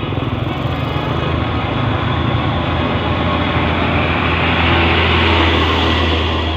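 Heavy truck engine running with a steady low drone, growing louder toward a peak about five seconds in and easing slightly near the end.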